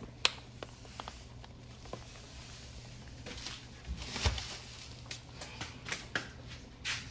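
Cooking handling noises at the stove: utensils and containers clicking and knocking, with a sharp click near the start as the loudest sound and a brief scrape or rustle around the middle, over a low steady hum.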